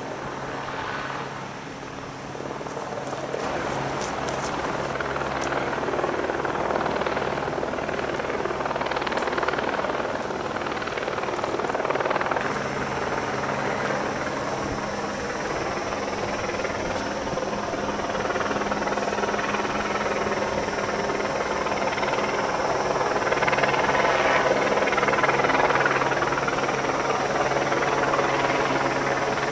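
Hovering helicopters: a steady rotor and engine drone with a constant low hum, growing gradually louder and loudest a few seconds before the end.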